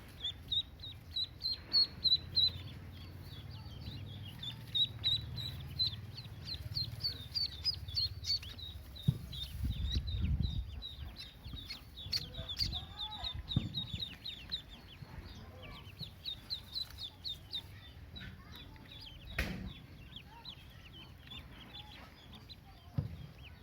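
Pekin ducklings peeping: a constant stream of short, high-pitched cheeps from several birds, with a few low thumps near the middle and one sharp click later on.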